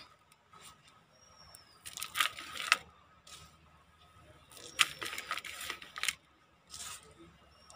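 Handfuls of crumbly potting mix of garden soil and cocopeat are dropped into a large plastic pot and spread by hand. This makes three short bursts of gritty rustling and pattering: one about two seconds in, a longer one around five seconds, and a brief one near the end.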